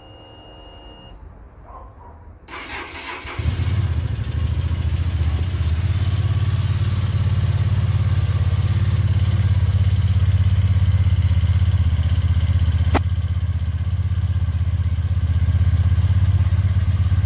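Kasinski Mirage 250 V-twin motorcycle engine cranked briefly, catching about three seconds in and then idling steadily through its stock, unmodified exhaust, a little louder from about six seconds in.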